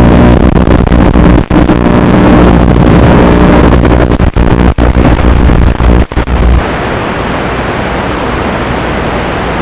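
FPV quadcopter motors buzzing, heavily distorted as picked up by the drone's onboard microphone, with a few brief dropouts. About six and a half seconds in the buzz stops and only a steady loud hiss remains.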